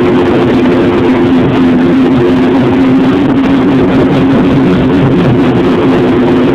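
Snowmobile engine running loud at a steady speed, a constant drone whose pitch wavers slightly, under a dense rushing noise.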